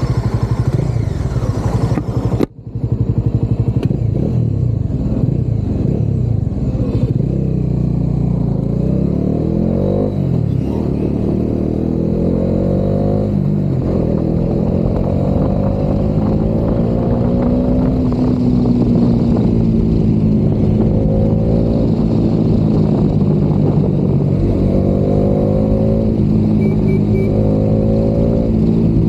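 Bajaj Dominar 400's single-cylinder engine pulling through the gears, heard from inside the rider's helmet. The pitch climbs and then drops at each shift, several times over.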